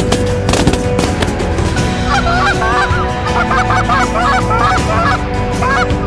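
A flock of geese calling overhead: many overlapping honks start about two seconds in and carry on, after a few sharp cracks in the first second.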